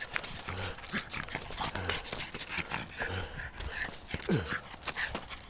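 A Jack Russell terrier chasing and nosing a soccer ball across a hard court: a quick, uneven run of taps and scrapes from paws and ball. About four seconds in, a short whine from the dog falls in pitch.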